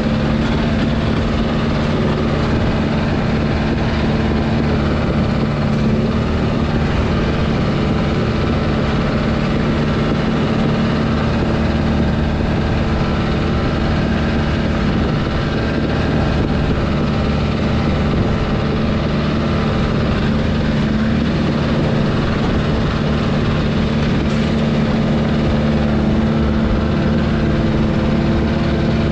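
Heavy-equipment diesel engine running at a steady, unchanging speed.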